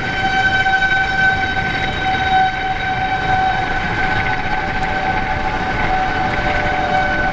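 Outdoor tornado warning siren sounding a steady alert tone that swells and fades slightly. Near the end a second, lower steady tone joins it.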